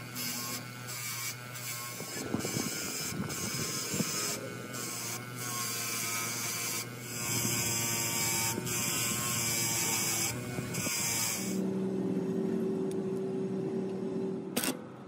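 A small electric motor running steadily with a humming whir, with scattered mechanical clicks.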